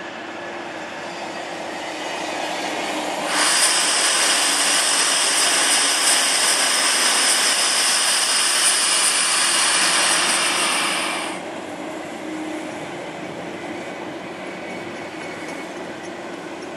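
Pendolino Sm3 electric trains moving through the station with steady rolling noise. About three seconds in, a much louder stretch of wheel-on-rail noise with steady high-pitched squealing tones begins, and it cuts off abruptly a few seconds before the end. Quieter rolling noise carries on after it.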